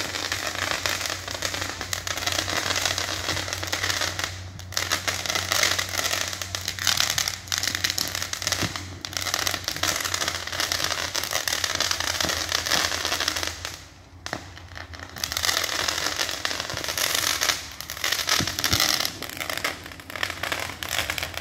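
A long hanging string of firecrackers going off in a rapid, continuous crackle of bangs. There is a brief break about four and a half seconds in and a lull of about a second and a half two-thirds of the way through.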